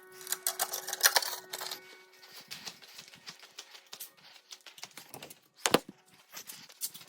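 Irregular light clicks and taps, with one sharper knock near the end; a faint steady hum dies away in the first couple of seconds.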